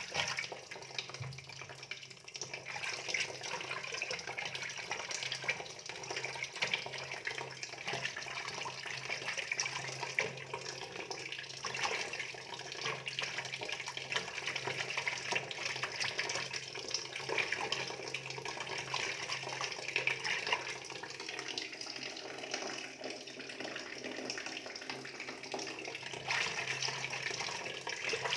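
Steady running water with a low hum underneath.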